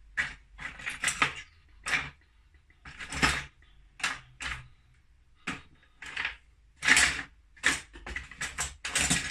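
Irregular clicks and clatters of hard plastic calculator keycaps and kit parts being picked through and handled on the bench, about a dozen sharp knocks.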